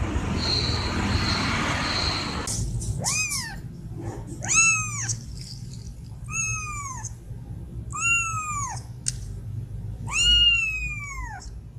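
Kitten meowing five times, high-pitched calls about every one and a half to two seconds, each rising then falling in pitch. A steady rushing noise fills the first two seconds or so before the meows begin.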